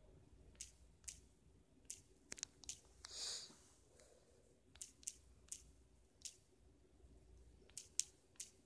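Light taps of a fingertip on a smartphone's touchscreen number keyboard: about a dozen short, sharp clicks at irregular spacing, some in quick clusters, with a brief soft hiss about three seconds in.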